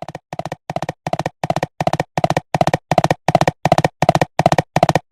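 Cartoon galloping sound effect: hollow, knock-like hoofbeats in quick clusters of three or four, about three clusters a second, in a steady gallop rhythm that grows louder over the first couple of seconds.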